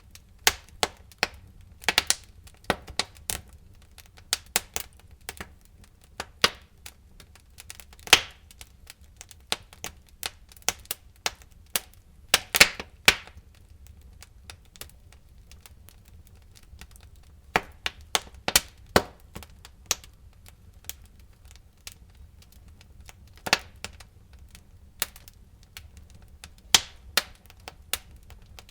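Wood fire burning in a fireplace: irregular sharp crackles and pops of burning logs over a low steady rumble of the flames, a few pops louder than the rest.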